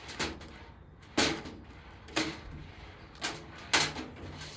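A series of short metallic scrapes and clacks about a second apart, five in all, as screws are worked out of a Harvest Right freeze dryer's sheet-metal back panel. The strike near the end is the loudest.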